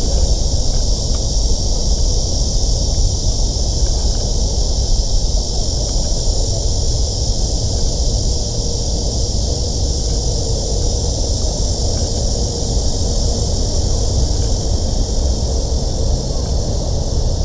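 Steady outdoor noise: wind rumbling on the microphone under a constant high-pitched hiss.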